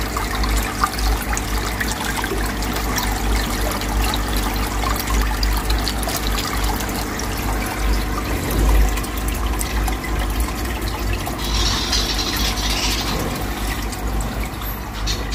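Aquarium top filter returning water, streams falling from the filter tray and splashing steadily into the tank, with a brief brighter hiss about twelve seconds in.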